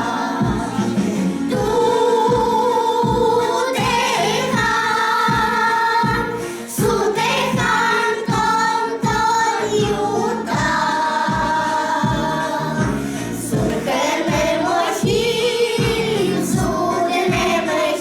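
A vocal ensemble singing a song together over a recorded backing track with a steady beat, the voices holding long notes.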